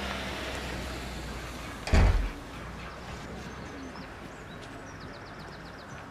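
Outdoor ambience with a low, steady rumble, broken about two seconds in by a single loud, short thump; afterwards faint high bird chirps.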